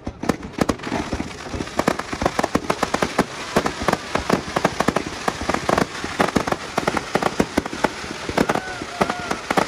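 Aerial fireworks going off in a dense, continuous run of sharp crackling pops, with louder, deeper bangs scattered through it.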